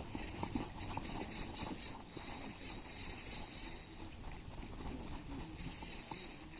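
Steady outdoor background noise: a low, fluctuating rumble with a hiss above it and no distinct events.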